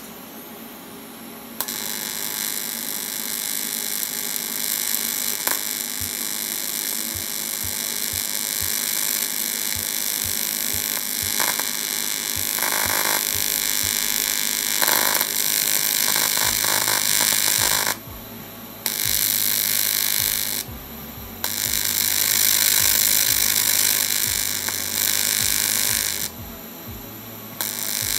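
AC TIG welding arc buzzing steadily while welding cast aluminum. The arc strikes a couple of seconds in, then cuts out and restrikes three times in the second half.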